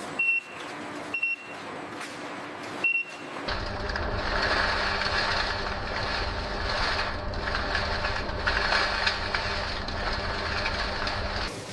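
Three short high electronic beeps over faint clicking. About three and a half seconds in, steady food-processing machinery noise starts, with a low rumble and a hiss, and it stops just before the end.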